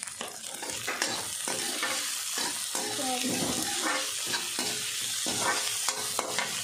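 Peas, carrot and onion sizzling in oil in a metal kadhai while a perforated steel skimmer stirs them, scraping and clinking against the pan again and again.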